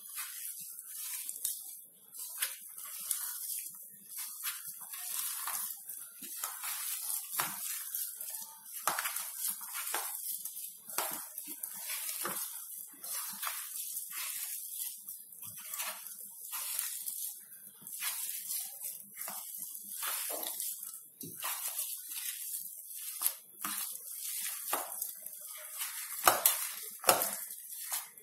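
Hands kneading a moist mashed beetroot, potato and breadcrumb mixture in a steel mixing bowl: a run of irregular soft squishing strokes, with two sharper knocks near the end.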